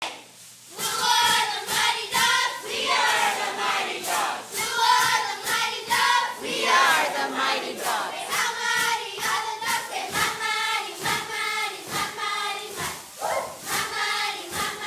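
A squad of young girl cheerleaders shouting a cheer in unison in a steady rhythm, with sharp hits marking the beat about twice a second.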